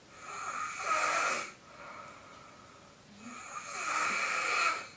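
Snoring: two long snoring breaths about three seconds apart, each building up and then cutting off.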